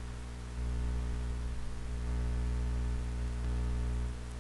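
Steady low electrical hum with a faint hiss, swelling slightly about half a second in and easing just before the end.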